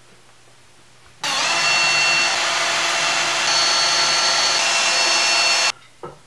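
Cordless drill running steadily at high speed into a wooden table brace, starting suddenly about a second in and cutting off sharply after about four and a half seconds.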